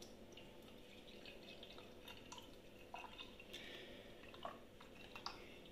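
Brewed coffee pouring from a French press into a ceramic mug: a faint, thin trickle of liquid with a few small drip ticks.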